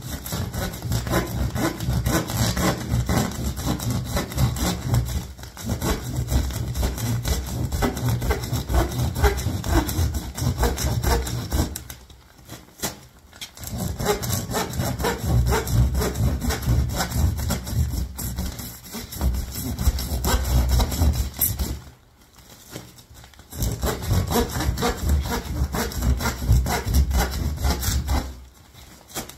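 Hand saw cutting through a plastic-wrapped roll of pink fiberglass insulation in quick back-and-forth strokes. The sawing stops briefly about 12 and 22 seconds in and again near the end.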